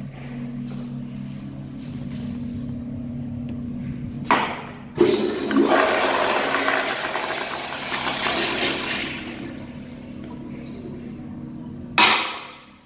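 Tankless commercial toilet flushing with a flushometer valve: a short burst about four seconds in, then a sudden loud rush of water that slowly fades as the bowl refills. A steady low hum is underneath before the flush, and a sharp sound comes near the end.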